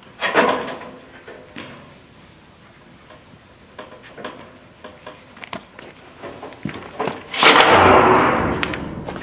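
Corrugated metal roofing sheets being handled: a clattering rattle just after the start, light clicks and taps, then a loud metallic wobbling rumble for over a second near the end as one sheet is lifted off the stack and flexes.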